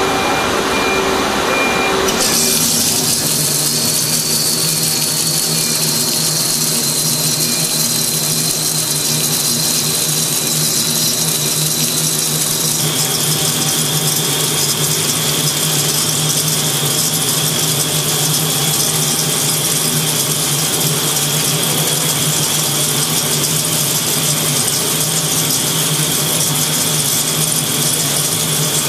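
Nakamura-Tome SC-450LL CNC lathe turning a long metal shaft: a steady machine hum, joined about two seconds in by a loud high cutting hiss and a thin high whine as the tool works along the shaft. The whine drops slightly in pitch around the middle and then holds steady.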